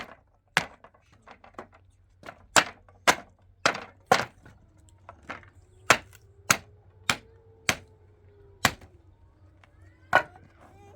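A series of sharp blows, a strike about every half second to second with a longer pause near the end.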